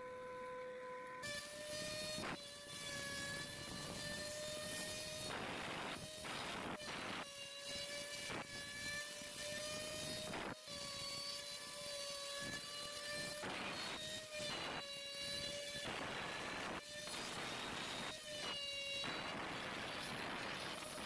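CNC router spindle running with a steady high whine while the bit routes into an MDF board, over a harsh scraping cutting noise. The whine wavers in pitch and drops out several times, giving way to longer rasping stretches of cutting. A lower steady hum comes first, before the whine starts about a second in.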